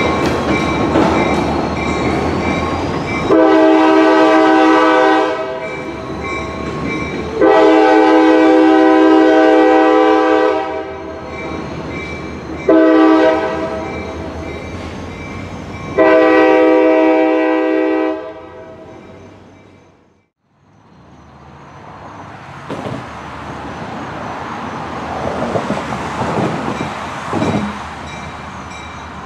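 Freight locomotive air horn sounding the grade-crossing signal as the train approaches: two long blasts, a short one and a final long one, over the loud running noise of the train. After the horn, a quieter steady outdoor noise follows with a few faint knocks.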